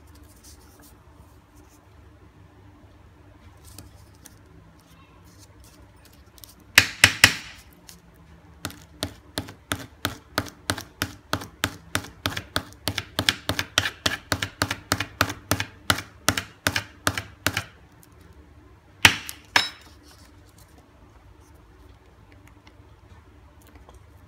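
Sharp clicks or taps from a custom-painted G-Shock resin watch strap being worked by hand in a durability test, running at about three a second for around nine seconds. Three louder clicks come just before the run and two just after it.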